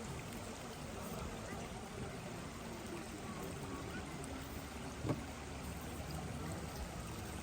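Steady rushing noise like running water, with one brief sharp knock about five seconds in.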